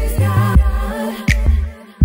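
Background music: a singing voice over heavy bass and drum hits, dropping away briefly near the end.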